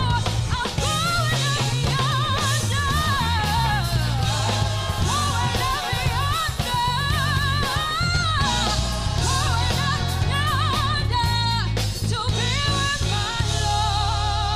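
Female gospel soloist singing into a microphone, her voice wobbling in a wide vibrato with quick runs, over a choir and a band with a steady bass line.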